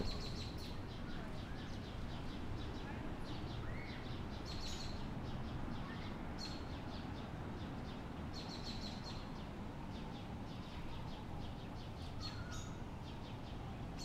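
Outdoor ambience of small birds chirping: short bursts of rapid high chirps every few seconds over a steady low background rumble.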